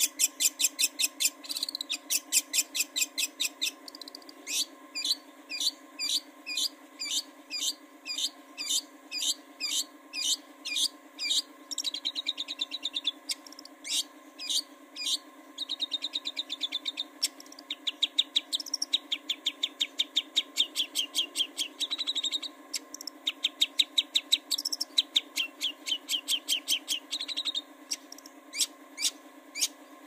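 Long-tailed shrike (cendet) singing: a fast run of sharp, high, downward-sweeping notes, two to five a second, broken now and then by short buzzy trills. A faint steady hum lies underneath.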